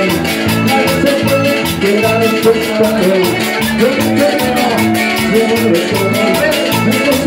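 A live band playing upbeat Latin dance music, driven by a fast, even percussion beat over a repeating bass line.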